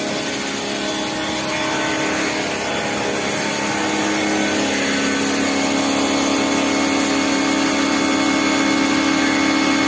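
Bosch Aquatak 125 electric pressure washer, a 1500-watt unit, running steadily: a constant motor-and-pump hum under the hiss of the water jet spraying onto a car's windscreen.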